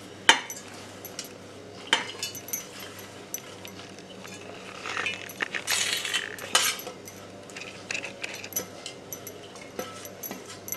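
Spoon scraping and clinking against a plate and the rim of a stainless-steel mixer jar as roasted onion and coconut are pushed in. Scattered sharp clinks and short scrapes, busiest about five to seven seconds in.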